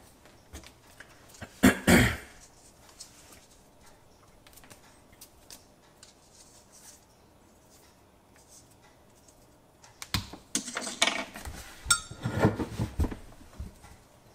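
Hands handling a braided water-supply hose fitting and plumber's tape under a sink: clicks and rustles, one loud rustle about two seconds in, then a quiet stretch, then a busier run of clicks and rustles near the end.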